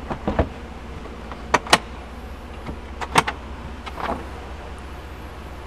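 Handling noise in the Jeep's cargo area: a few light, scattered clicks and taps, two of them close together about a second and a half in, over a steady low hum.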